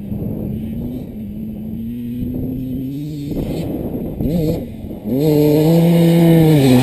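A dirt bike's engine accelerating hard through the gears. The pitch climbs, drops back at each upshift, then holds at high revs and gets much louder about five seconds in as the bike planes across the water with spray flying.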